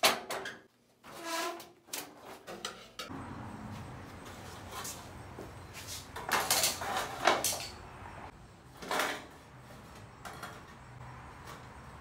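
Sheet-metal bending brake clanking, with a brief metallic ring, as aluminum trim coil is bent. A bent aluminum trim piece is then handled against wood, with loud sheet-metal clatters and knocks about halfway through and again later, over a steady low hum.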